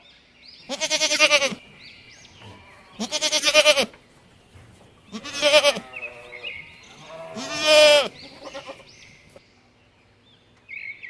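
Farm animal bleating: four loud, wavering calls about two seconds apart, each under a second long, with faint high chirps between them.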